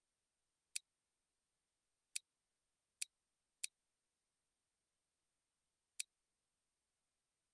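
Five sharp, single computer mouse clicks, irregularly spaced, two of them close together in the middle, over near silence.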